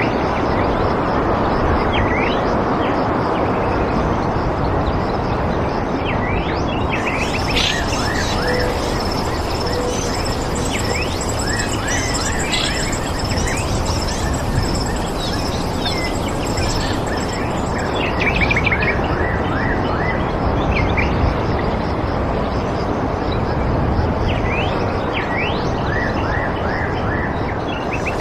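Small birds chirping, many short calls, over a steady rushing background noise. A steady high-pitched buzz joins about seven seconds in and stops near the end.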